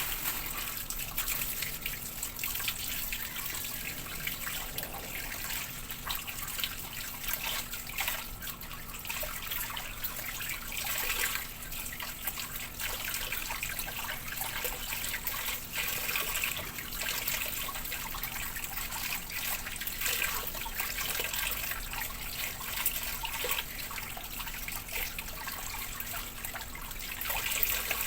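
Tap water running and splashing while raw chicken and fish are washed by hand, with small irregular knocks and splashes.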